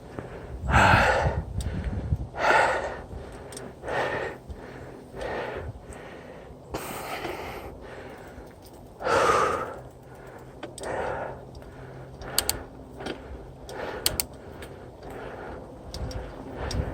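A mountain biker breathing hard while pedalling, with a loud breath about every second and a half. Sharp clicks come in over the last few seconds.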